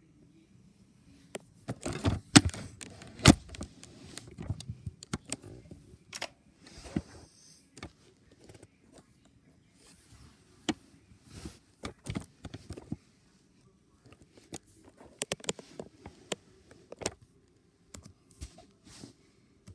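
Mechanical keyboard being typed on in slow, heavy, irregular keystrokes, hunt-and-peck style, with pauses between clusters of clacks. The hardest strikes come about two to three seconds in and again around fifteen to seventeen seconds in.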